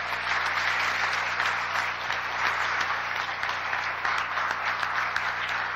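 Audience applauding steadily, a dense patter of many hands clapping in a hall.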